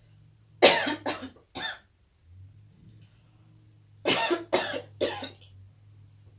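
A person coughing in two short fits of three coughs each, about three seconds apart.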